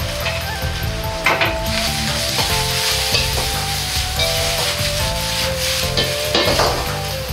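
Vegetables sizzling in a hot iron wok (中華鍋) as they are stir-fried with chopsticks. Twice, about a second in and near the end, the sizzle swells briefly as the wok is tossed.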